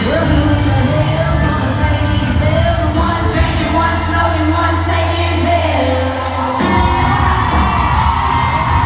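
Live country band performance, with women's voices singing over the band.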